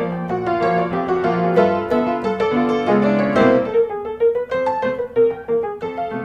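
Background piano music: a light tune of struck notes and chords, thinning to a sparser melody partway through.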